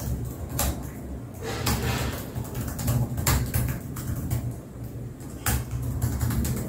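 Fast typing on a Dell Inspiron 14 5430 laptop keyboard: a quick, uneven run of key clicks, with a low rumble underneath.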